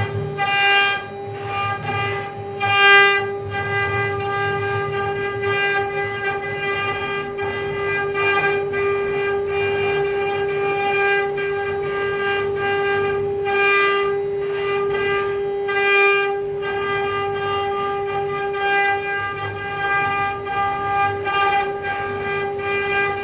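Mini CNC engraving machine's spindle whining at a steady pitch as it carves, with a low running rumble beneath and brief louder swells of cutting noise now and then.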